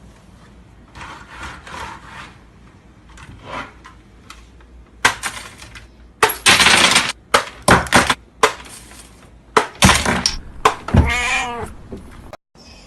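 A cat meowing, with a run of loud crashes and clatter in the middle and one long, bending meow near the end.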